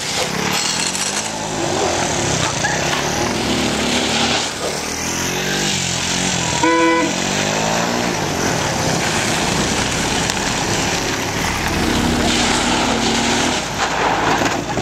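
Motor scooter engine revving up and down while its rear tyre skids and scrabbles on gravel as it drifts. A short horn toot sounds about seven seconds in.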